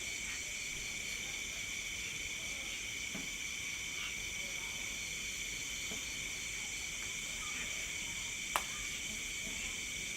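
Night insect chorus of crickets: steady, unbroken trilling at several pitches at once, one layer pulsing rapidly. A single sharp click near the end.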